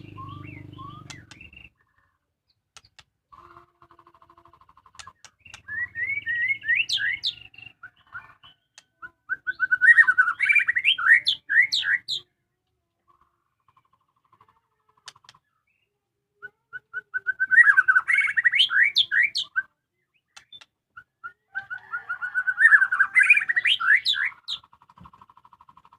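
A white-rumped shama singing: four bursts of rapid, rising, chirping notes separated by pauses of a few seconds, with short buzzy rattles between them.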